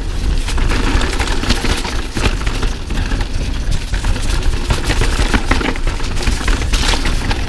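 Pivot Firebird 29 mountain bike riding fast over a rough, rocky trail: a dense, irregular clatter of knocks from tyres, chain and frame over the bumps. A steady low rumble of wind on the microphone runs underneath.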